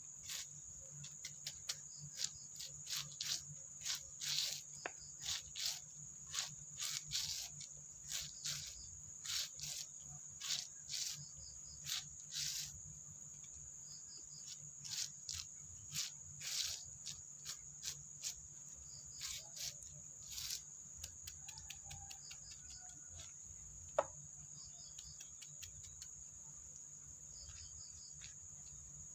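Insects chirring steadily in one high, unbroken tone, over a run of short, irregular scratchy strokes that stop about 21 seconds in, with a single sharp click near the end.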